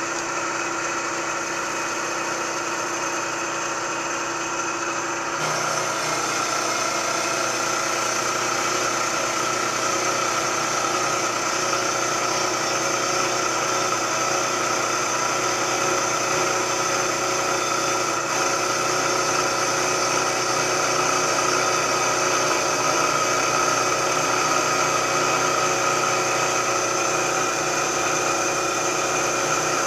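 Milling machine running steadily with its cutter taking a pass across a cast iron angle plate casting; about five seconds in the sound gets a little louder and brighter, then holds.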